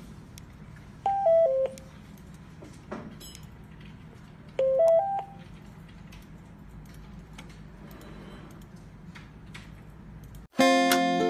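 Retevis RB86 GMRS mobile radio's beep tones: a falling three-note chime about a second in as it powers off, then a rising three-note chime around five seconds in as it powers back on to its welcome screen. Ukulele-like music starts near the end.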